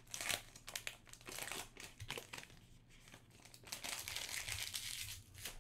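Shiny foil wrapper of a Panini Prizm football card pack crinkling and tearing as it is ripped open by hand, in short bursts at first, then a longer stretch of crinkling near the end.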